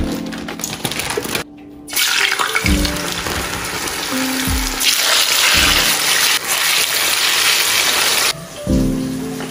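Frozen plantain slices dropped into hot oil in a frying pan, sizzling and bubbling loudly from about two seconds in; the sizzle cuts off suddenly near the end. Background music with low notes plays underneath.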